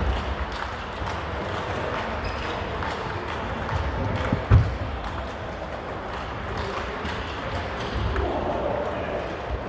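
Table tennis rally: the ball clicking off the bats and the table, ringing in a large sports hall, with a dull thump about four and a half seconds in. Murmuring voices are in the background.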